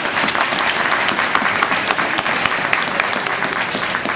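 Audience applauding: many hands clapping together, steady throughout.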